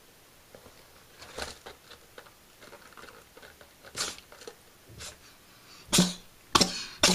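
A cat sneezing: a few faint sneezes or sniffs in the first seconds, then a quick run of loud, sharp sneezes near the end.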